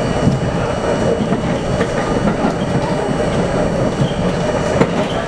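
R42 subway train running along the track, heard from inside the front car: a steady rumble of wheels on rail with a few sharp clicks as the wheels pass rail joints.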